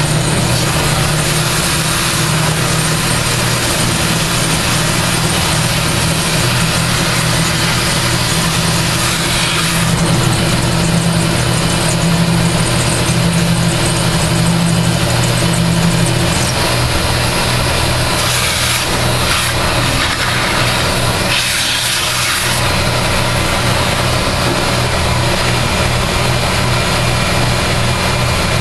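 Shop vacuum running steadily, its nozzle drawing metal chips off a brake rotor, over the hum of a JMD-15 mill/drill's motor.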